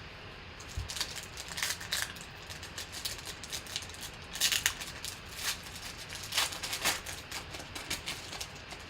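Trading cards being handled and flipped through: irregular papery swishes, slides and light clicks.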